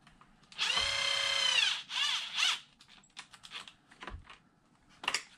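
Small cordless power driver running screws into the RC truck's steering servo mount: the motor whines up, runs about a second and winds down, then gives two short bursts, followed by a few light clicks of parts and tools.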